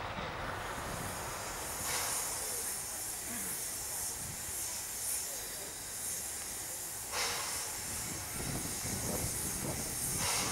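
Narrow-gauge steam locomotives venting steam in a steady hiss, with brief louder surges about two seconds in, about seven seconds in and near the end.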